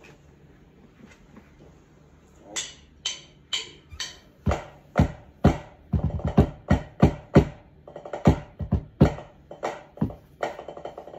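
Pipe band drum corps playing a fanfare: drum strokes start about two and a half seconds in and go in a steady rhythm, bunching into quicker figures in the middle and near the end.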